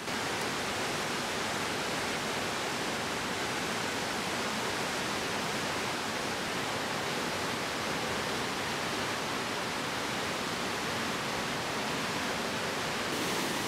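Mountain river rapids: water rushing and pouring over large boulders, a steady, unbroken rush.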